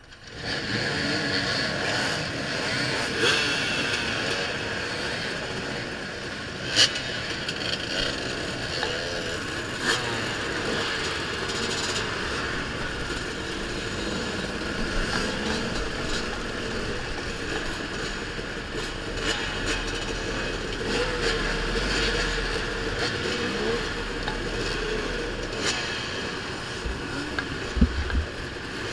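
Dozens of off-road dirt bike engines revving at once in a mass start, blending into one dense, continuous din that comes in suddenly. A few sharp knocks stand out, the loudest about seven seconds in.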